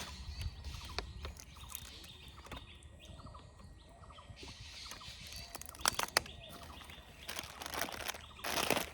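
Snack packets being handled: a few sharp clicks, the loudest a pair about six seconds in, then rustling and crinkling of a wrapper near the end.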